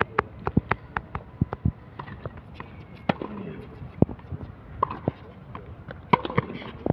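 Tennis on an outdoor hard court: sharp pops of racquets striking the ball and knocks of the ball bouncing, with quick footsteps, the loudest hits about four seconds in and just after six seconds. Faint voices in the background.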